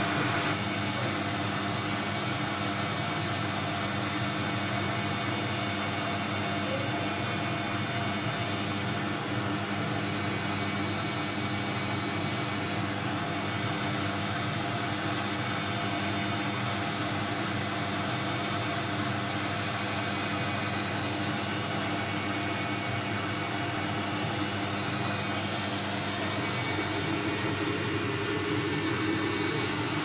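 Front-loading washing machine spinning its empty steel drum fast: a steady motor and drum whir with a few constant hums. The machine is working normally after the repair of a drum that would not turn.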